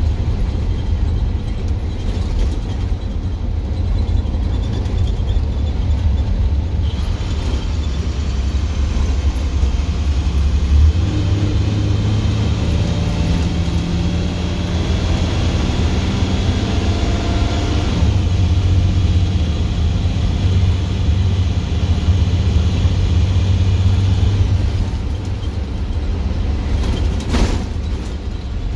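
Straight-piped International DT466E six-cylinder turbodiesel pulling down the road, heard from the driver's seat as a loud, steady, deep exhaust rumble. A thin high whistle rides over it from about ten seconds in until near the end, with a brief dip partway, and a short click sounds near the end.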